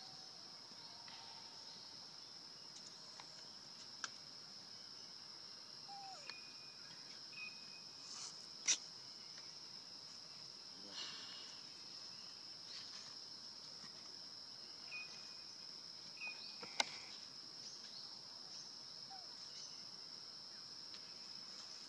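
Steady high-pitched drone of insects, with two sharp clicks about two-fifths and three-quarters of the way through and a few short chirps scattered across it.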